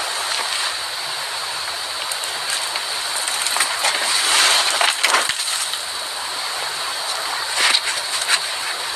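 Steady background hiss with scattered crunching and clicking noises, a cluster in the middle and a few more near the end, which the explorer suspects are a mouse or rat.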